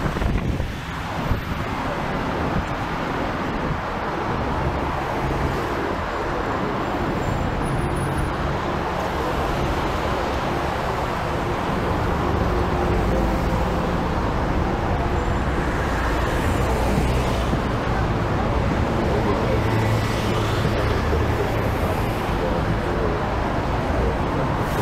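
Street traffic heard from a moving sightseeing bus: the bus's engine running with road noise, a steady low hum that grows a little louder about halfway through.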